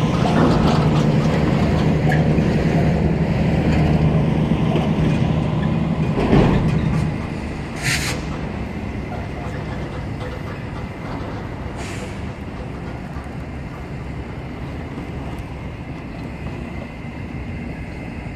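Heavy diesel truck hauling a shipping container, its low engine drone pulling away and falling off about seven seconds in. A short sharp hiss follows about a second later, then steady passing road traffic.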